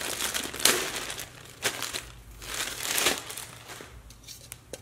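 Clear plastic bag crinkling in several bursts as a speaker grille is unwrapped from it, followed by a few light clicks near the end.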